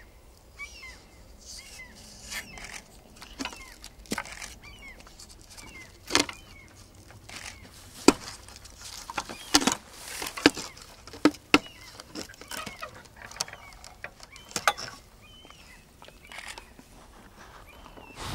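Small birds chirping, with irregular sharp knocks and clicks scattered through it, the loudest in the middle.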